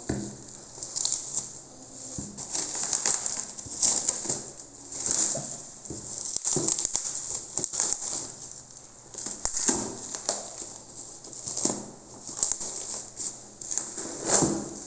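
Bubble wrap crinkling and rustling as it is pulled and peeled off a cardboard box, in irregular bursts.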